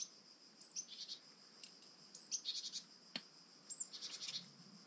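Faint high-pitched chirping and short trills, with a couple of small sharp clicks from pliers handling a small metal pin.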